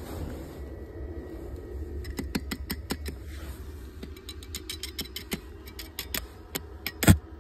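Stick-welding electrode tapped and scratched against the steel rod and angle of a grounding loop to strike the arc: a run of sharp, irregular clicks that come faster, then a loud crack near the end as the arc catches. A steady low hum runs underneath.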